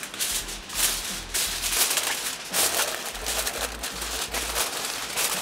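Sheet of aluminium foil crinkling and rustling in gloved hands as it is pressed down over a foil tray to cover a resting steak, in a string of quick, irregular rustles.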